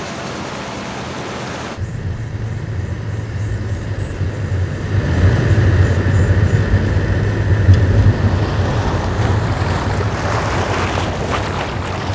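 Small Toyota hatchback on the move: a steady low rumble of road and wind noise that starts about two seconds in, gets louder in the middle and eases toward the end.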